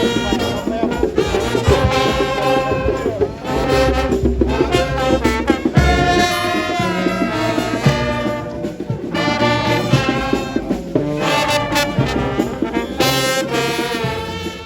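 Music led by brass instruments, trumpets and trombones playing a moving melody in phrases over a steady low backing.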